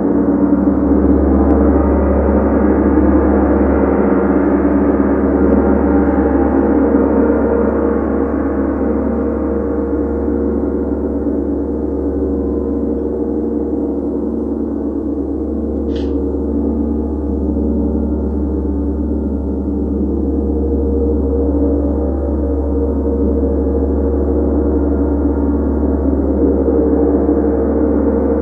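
Large tam-tam kept sounding with a soft mallet: a dense, sustained wash of many overlapping tones with no distinct strikes, swelling and ebbing slowly. A brief faint tick about halfway through.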